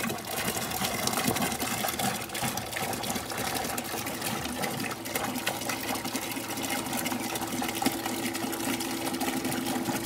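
A stream of water pouring from a PVC pipe fitting into a plastic five-gallon bucket and splashing steadily. Under it runs the steady hum of a small electric pump pushing water through the compost heater's pipe coil.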